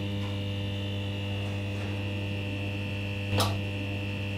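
Steady electrical mains hum with a high buzzing edge, the buzz of a neon sign, with one short crackle about three and a half seconds in.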